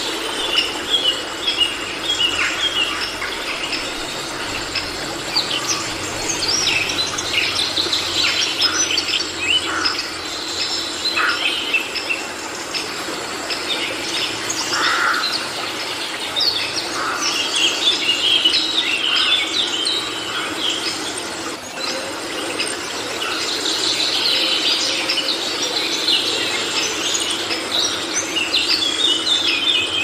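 Rainforest ambience: many birds chirping and calling at once, sharp short calls overlapping throughout, over a steady background hiss.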